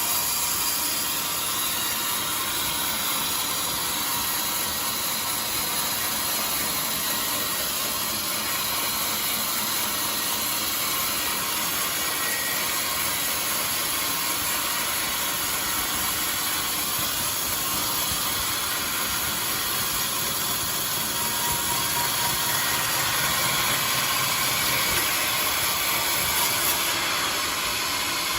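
Band sawmill running steadily, its blade cutting through a jackfruit log.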